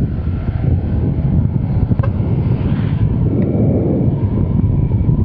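Wind buffeting the microphone of a moving scooter, a loud rumble, with the Honda Click 125i's small single-cylinder engine running steadily underneath.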